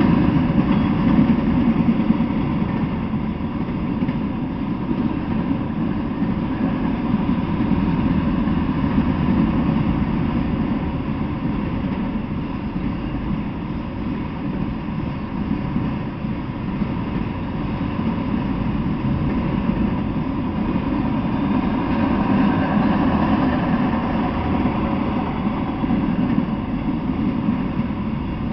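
Freight train of autorack cars rolling past, a steady rumble of steel wheels on the rails that swells and eases slightly.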